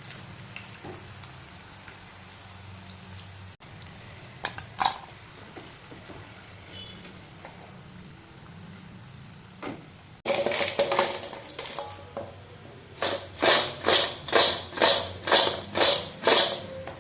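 Cauliflower frying in hot oil with a steady sizzle, with a few clicks of a utensil. Later a metal utensil works the pan in about nine quick, even strokes, two or three a second.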